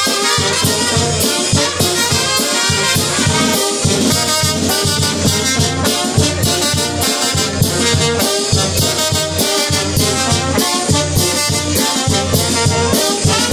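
Live brass band playing: trumpets, a euphonium and a tuba over a bass drum and drums keeping a steady beat.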